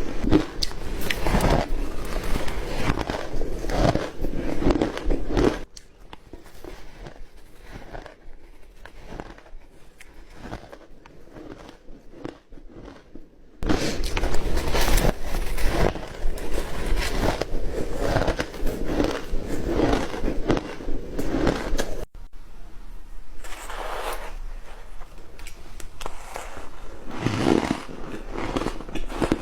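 Close-miked biting and crunching of flaky ice, a dense run of crackly crunches. It drops quieter for several seconds, then comes back loud.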